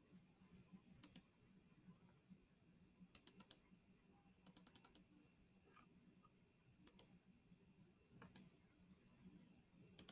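Clicking at a computer: sharp, faint clicks in quick clusters of one to six, a second or two apart.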